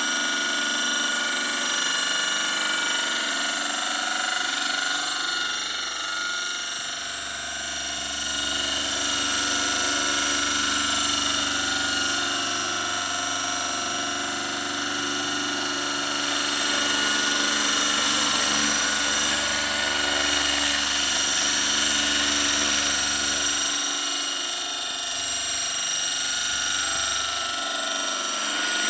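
Radio-controlled scale model of a Boeing Vertol 234 tandem-rotor helicopter in flight: a steady high-pitched whine of its drive and rotors, swelling and easing slightly as it manoeuvres.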